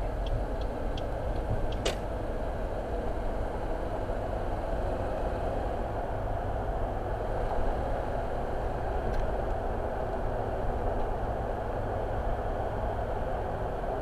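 Steady road and engine noise heard inside a moving car's cabin, with a single sharp click about two seconds in.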